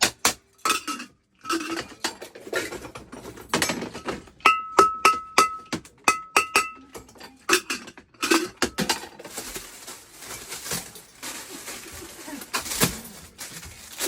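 Metal cookware being knocked and clattered, with a run of ringing strikes on a pan about four a second in the middle, then scraping and rattling.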